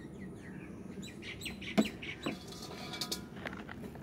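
Plastic toy animals handled and dunked in a tub of soapy water: wet clicks and knocks, the sharpest a little under two seconds in, with short high squeaky chirps.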